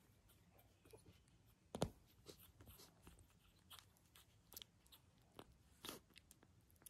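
Quiet, soft clicks and wet mouth smacks from newborn puppies stirring and mouthing in their bed, the sharpest click about two seconds in; near the end one puppy yawns.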